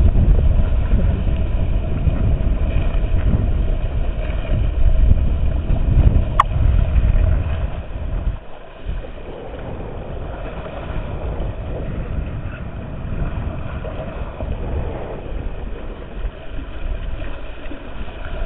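Boat's engine running steadily under way, with a heavy uneven low rumble for the first eight seconds, then quieter with a constant hum. A single sharp click comes about six seconds in.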